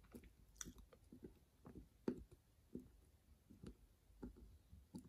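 Faint, irregular small clicks and taps of a screwdriver tightening a small screw into a 3D-printed plastic motor adapter, with about ten light ticks spread over the few seconds.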